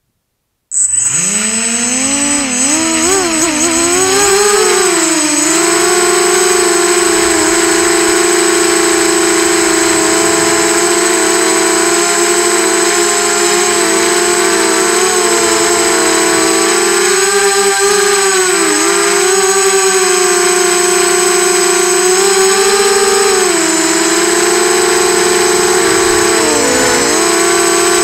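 A Tweaker 180 racing quadcopter's motors and propellers, heard from its onboard camera, spooling up sharply about a second in. They then whine steadily, the pitch dipping and rising as the throttle changes, with a thin steady high tone over the top.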